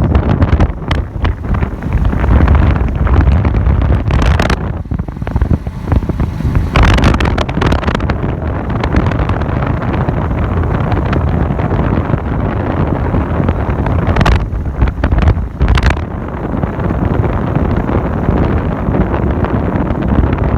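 Wind buffeting the microphone, a loud steady rumble with a few short knocks and rustles.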